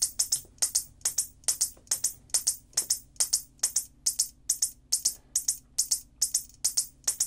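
Whelen Edge Strobe II strobe power supply firing its flash tubes: sharp high-pitched ticks in close pairs, about two pairs a second, in the double-flash pattern, over a faint steady hum. The repaired supply runs cleanly with no arcing.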